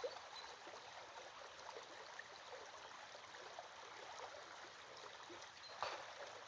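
A small stream trickling and gurgling faintly, with a slightly louder splash near the end.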